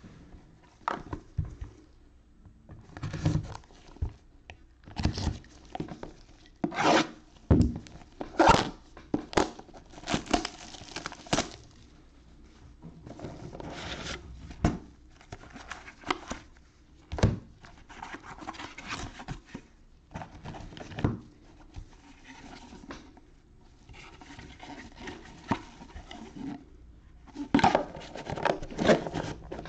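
Gloved hands handling trading cards in hard plastic cases and a shrink-wrapped cardboard card box: irregular clicks and knocks, with stretches of rubbing and rustling in between.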